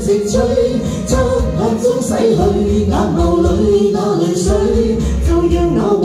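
A man and a woman singing a pop song as a duet into handheld microphones, over backing music with a steady bass and beat.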